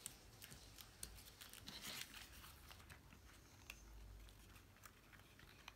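Faint rustling and light taps of cardstock pieces being handled and pressed together as glued paper parts are joined, with a short rustle about two seconds in.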